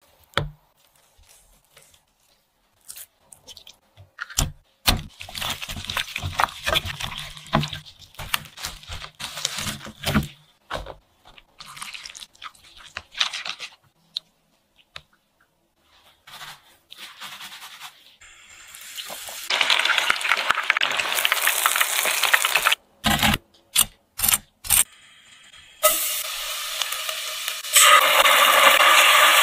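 Kitchen food-preparation sounds: scattered taps and handling noises. From about twenty seconds in, a steady hiss with short breaks takes over.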